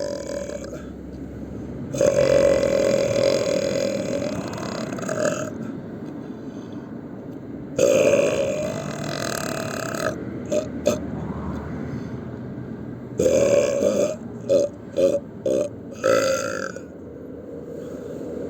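A person belching loudly, one burp after another: two long, drawn-out belches of about three seconds and two seconds, then a run of short, quick burps near the end.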